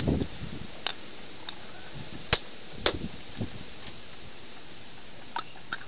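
A large knife chopping at a coconut in sharp, irregular strikes. There is a dull thud at the start, then about five cracks, the loudest two in the middle.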